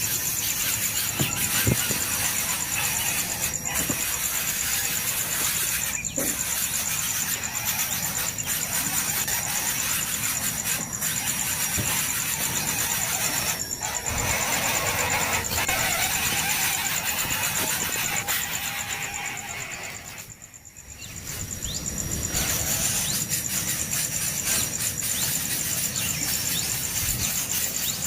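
Nestling birds' begging calls, a dense run of high squealing cheeps, with a steady high insect buzz behind them. The sound fades down and back up about twenty seconds in.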